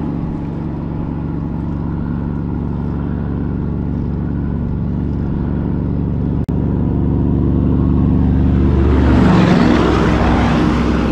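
Highway traffic: a motor vehicle's engine running with a steady low note, growing louder as it comes by close, loudest about nine to ten seconds in, then easing off.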